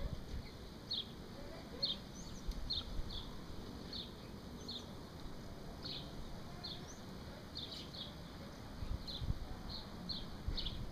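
A small bird calling with short, high chirps, repeated irregularly about once a second, over a low rumble.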